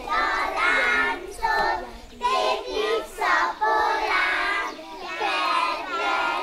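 A group of young children singing a Hungarian folk song together, in short phrases with brief breaths between them.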